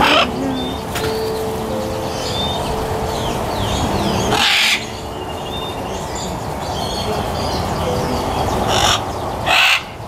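A macaw giving harsh, raspy squawks: one at the start, a longer one about halfway through, and two short ones near the end. Small birds chirp faintly in between.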